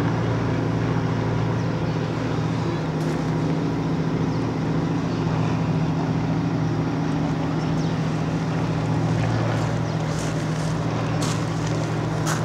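An engine running steadily at one constant speed, a low even drone that does not change.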